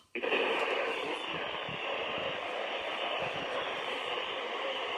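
Steady radio static hiss from a weather radio receiver with no voice on the channel. It comes in right after a split-second dropout of the signal.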